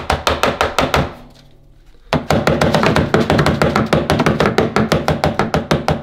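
Dyson V7 vacuum cleaner filter being whacked rapidly against the inside of a bin, about eight knocks a second, in two runs with a short pause about a second in, knocking loose the dust that clogs it.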